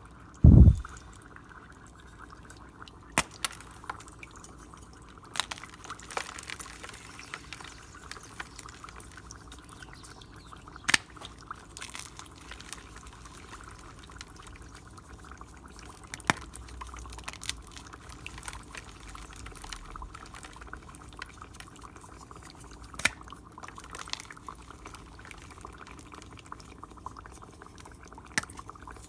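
Dry ice in water bubbling steadily in a glass goblet while gym chalk is poured over it. A heavy thump comes about half a second in, with sharp clicks now and then.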